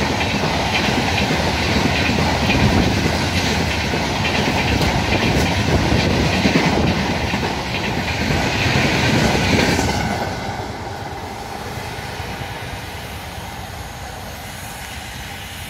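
Express train's passenger coaches rolling past at speed, wheels clattering rhythmically over the rail joints. About ten seconds in the last coach goes by and the sound drops, then fades steadily as the train runs away.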